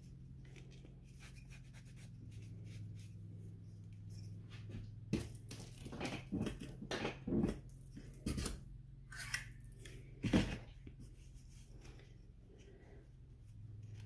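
Faint scraping and rustling of shower steamer mix being worked by hand in a mold, with a run of light taps and knocks in the middle, over a steady low hum.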